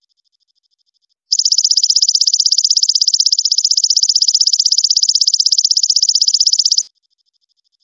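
Belalang emas (golden katydid) calling: a loud, high-pitched, rapidly pulsing buzz that starts abruptly about a second in and cuts off sharply near the end. A much fainter pulsing trill runs before and after it.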